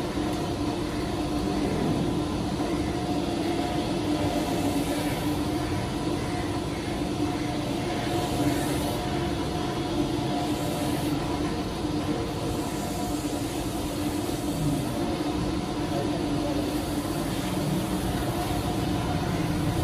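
Steady machinery hum with a constant low drone, running evenly throughout.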